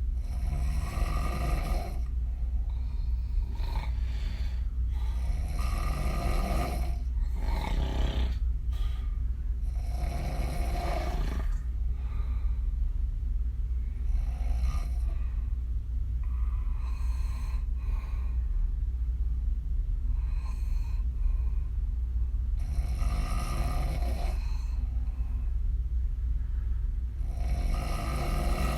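A woman snoring with her mouth open, her lips blowing with the breath. The snores come every few seconds over a steady low hum.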